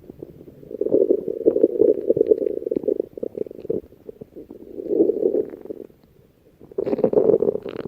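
Stomach growling in three bouts: a long rumble of about three seconds, a short one about five seconds in, and another starting near the end.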